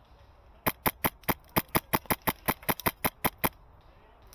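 Wolverine MTW HPA airsoft rifle firing a rapid string of about fifteen shots in three seconds, each a sharp crack, the shots coming roughly five a second and unevenly spaced.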